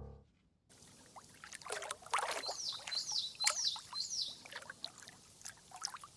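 Water pouring and moving in a small metal pot, with scattered light clinks and knocks.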